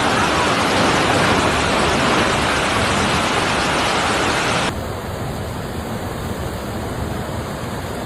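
Steady loud rushing of storm water, from heavy rain and flowing floodwater. About halfway through it changes abruptly to a quieter, duller rush.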